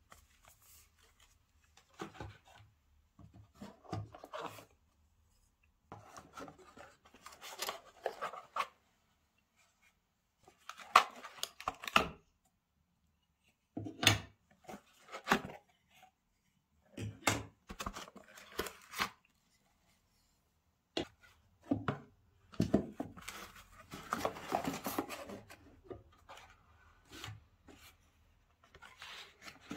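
Product packaging being handled and opened by hand: irregular bursts of rustling and scraping with sharp clicks and knocks, broken by short pauses.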